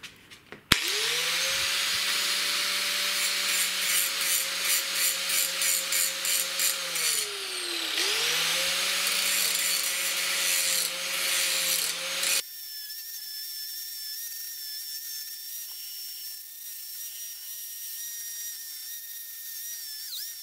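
A 4-inch angle grinder is switched on and grinds the cast-iron base of a mill column, its whine sagging in pitch as it is pressed into the metal about seven seconds in, then picking up again. The grinding scrapes in a rhythm of about two strokes a second. About twelve seconds in, the sound drops suddenly to a much quieter, steady high whine.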